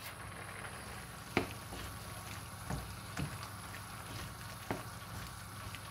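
Wooden spoon stirring chicken and mushrooms through a frying pan of simmering rice, with a few short knocks of the spoon against the pan over a steady hiss.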